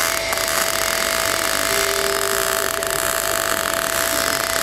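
MIG/MAG welding arc crackling and hissing steadily as the root pass is laid over a tack's start-stop on a steel pipe branch joint, at turned-down power, with a steady thin whine underneath.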